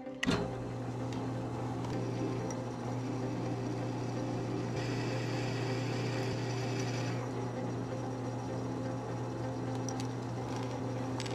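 An electric workshop machine motor starts with a click and runs with a steady hum. A higher hiss joins for about two seconds midway.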